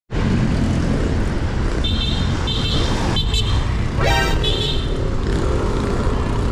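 Steady road traffic rumble. A vehicle horn toots briefly about four seconds in, among a few short high-pitched beeps starting about two seconds in.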